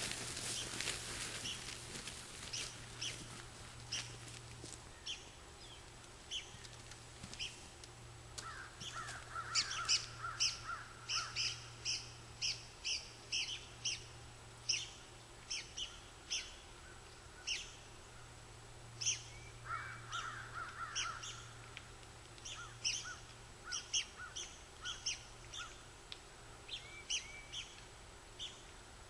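Wild birds calling: many short, sharp high chirps repeated irregularly, with two spells of lower, rapid chattering about nine and twenty seconds in, over a faint steady low hum.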